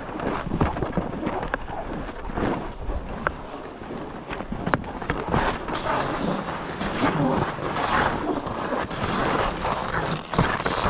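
Skis sliding and scraping over snow, with scattered sharp clicks and knocks.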